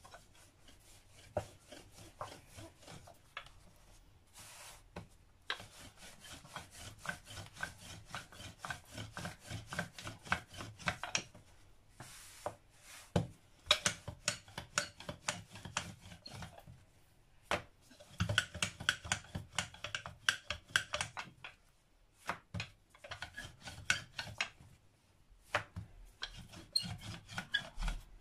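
Rolling pin rolling out naan dough on a floured wooden worktop: a quick run of rubbing strokes, stopping briefly a few times.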